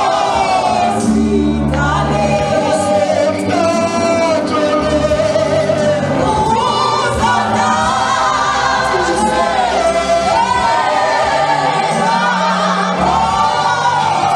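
Gospel worship song: a man singing lead into a microphone with choir voices, over a steady instrumental backing with sustained bass notes.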